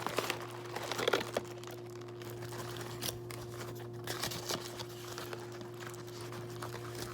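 Paper food wrapper crinkling and rustling in irregular bursts as it is handled, over a steady low hum.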